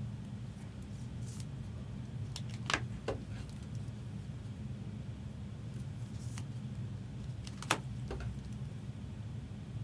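Trading cards being handled: a few light clicks and taps, the sharpest about three seconds in and again near eight seconds, over a steady low hum.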